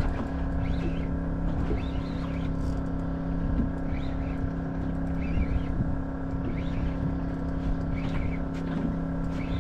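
A boat's motor running steadily, a constant even-pitched hum over a low rumble.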